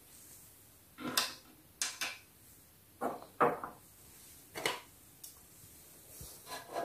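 Small plastic dollhouse pieces being set down on a plastic playset floor and desk: about six light knocks and clicks, spaced irregularly.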